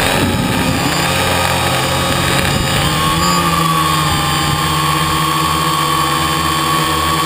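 Quadcopter's electric motors and propellers whining steadily, heard close up from the camera it carries, the pitch shifting slightly about three seconds in as the craft manoeuvres.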